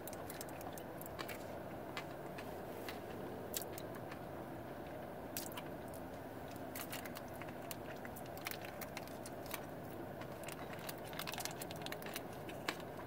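Mouth chewing a chocolate bar with jelly bean and popping candy pieces, with scattered small clicks and crackles over a steady low hum.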